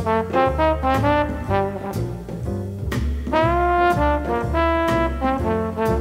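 Instrumental background music: a melody of shifting notes over a steady bass line.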